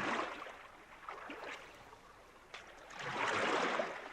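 Oar strokes pulling through water, with light drips between them: two swishing strokes, one right at the start and a fuller one about three seconds in.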